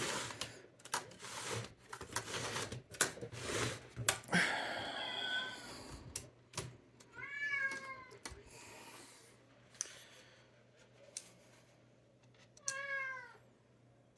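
A cat meowing: a longer call about four seconds in, then two short calls with a rising-then-falling pitch, one in the middle and one near the end. Before them come clicks and scrapes from handling the typewriter and screws.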